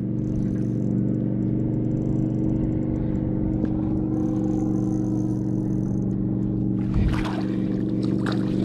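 A boat motor hums steadily at a low pitch. About seven seconds in there is a burst of splashing as a hooked striped bass thrashes at the surface beside the landing net.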